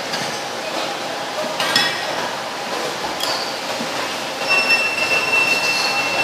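Bowls and metal utensils clinking twice at a noodle stall over a steady background hiss. A thin, steady high whistling tone comes in about four and a half seconds in.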